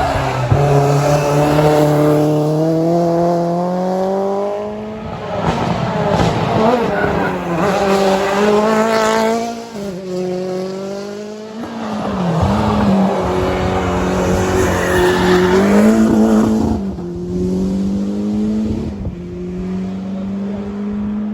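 Rally car engine revving hard through the gears, its pitch climbing and dropping sharply at each change, several times over, with tyre squeal as the car drifts.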